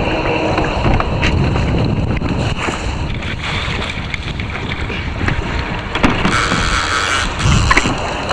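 Wind buffeting the microphone over water slapping and splashing around a kayak, with a few sharp knocks and a brief louder moment about six seconds in.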